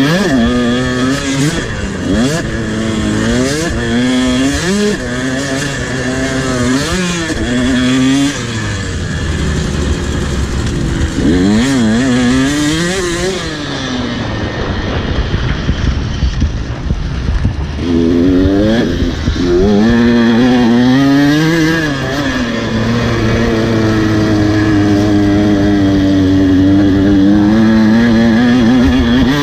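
A motocross dirt bike engine being revved hard and eased off again and again, its pitch climbing and dropping with each burst of throttle and gear change. The engine runs lower and quieter for a few seconds around the middle, then holds high revs near the end.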